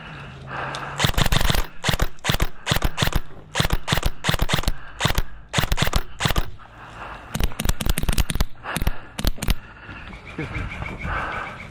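Airsoft guns firing, a rapid string of sharp shots in several bursts from about a second in, dying out near the end.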